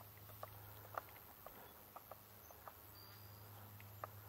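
Near silence: faint outdoor background with a low steady hum and a scattering of soft, irregular ticks.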